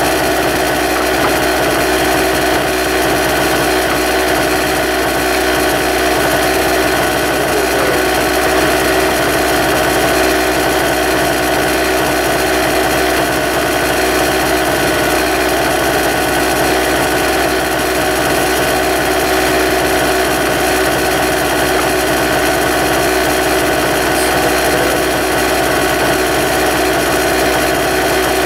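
An engine running steadily at one constant speed, an even mechanical drone with no knocks or pauses.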